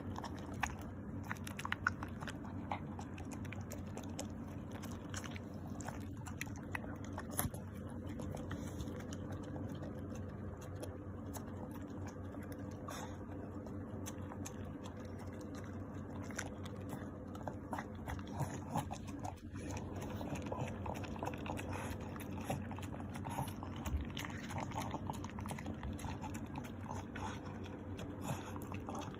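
French bulldog eating cake: ongoing wet chewing and mouth smacking, heard as many small irregular clicks over a steady background hum.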